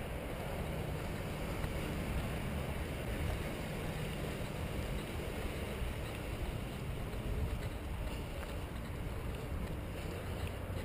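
Steady rumbling noise of wind on a body-worn action camera's microphone while walking, with a faint low hum underneath.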